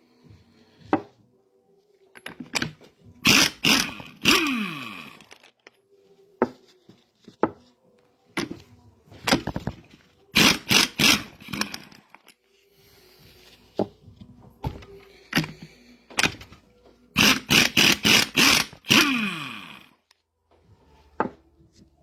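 Work noise from taking apart a mini excavator's hydraulic control valve: three clusters of short, loud, sharp bursts, two of them ending in a brief falling tone, with scattered faint knocks of metal parts in between.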